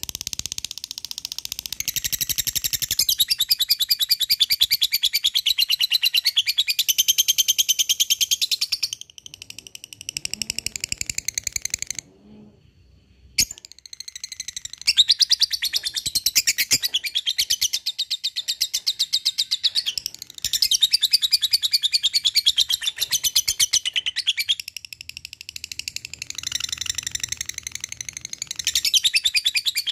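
Lovebird singing a long 'ngekek' chatter: fast, rattling runs of high notes, many to the second, going on for several seconds at a time. A few short breaks fall between the runs, the longest a little before the middle.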